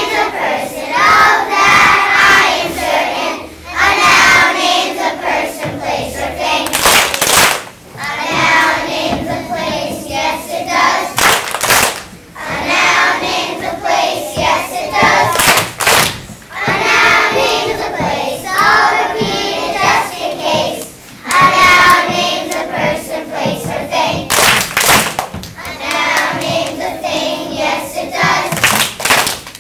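A choir of young children singing a song together in phrases of a few seconds with short breaks between them, with sharp hand claps now and then.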